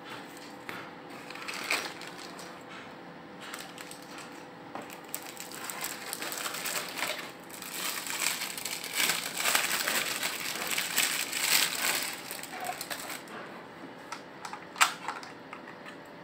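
Plastic packaging wrap and bags crinkling and rustling as they are handled, loudest through the middle stretch, with a single sharp click near the end.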